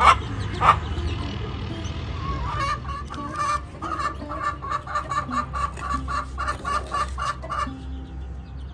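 Knife chopping leafy greens on a cutting board, a regular run of sharp strokes about four a second from about two and a half seconds in, stopping shortly before the end. Chickens cluck throughout.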